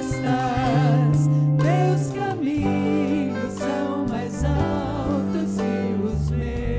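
Christian worship song: a singer with vibrato and backing voices over a band with held bass notes and regular cymbal strokes.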